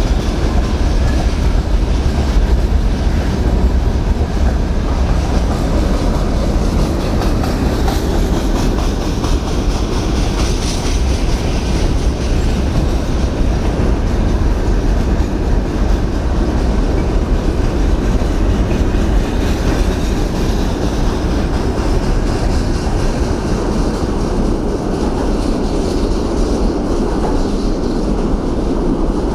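Train passing close by for a long stretch, its wheels clattering steadily over the rails with a heavy, continuous rumble.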